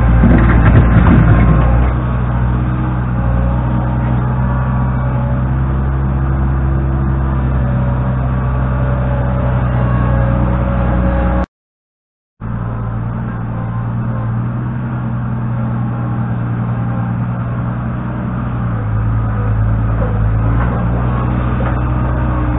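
New Holland LX665 skid steer loader's diesel engine running steadily under work, with a louder, rougher stretch in the first two seconds. The sound cuts out completely for about a second near the middle.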